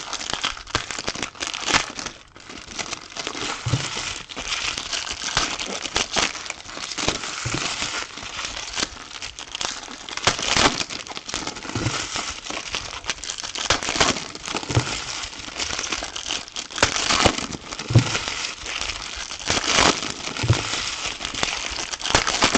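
Trading card pack wrappers being crinkled and handled as packs of Topps Chrome soccer cards are opened. The crinkling goes on without a break, with a few soft low knocks among it.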